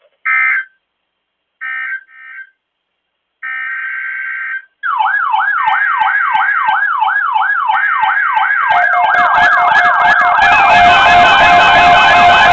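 Three short bursts and then a longer burst of screechy EAS digital data tones. About five seconds in, an electronic siren starts yelping, about three falling sweeps a second. A steady tone and further layers join it and grow louder.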